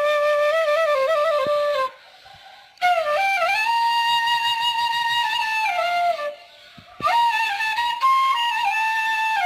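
Background music: a solo flute playing a slow melody of long held notes, with two short pauses between phrases.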